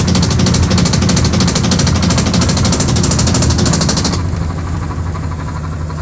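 Sharp automatic washing machine on its spin cycle: a steady low motor hum under a loud, rapid rattling that stops about four seconds in, leaving the hum. The noise is the very noisy spin that was traced to a defective tub assembly, not to the suspension.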